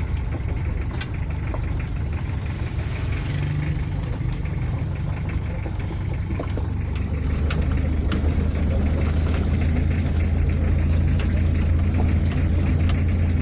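Vehicle engine running, heard from inside the cab as it drives on a gravel road, with a few short clicks. The engine hum grows louder and steadier about halfway through.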